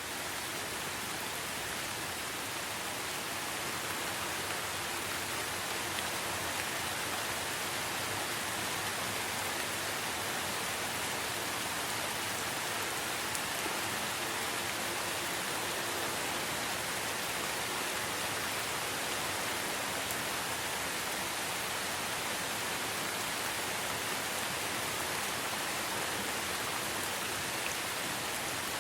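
Light rain falling steadily, an even hiss of many small drops with no change in strength.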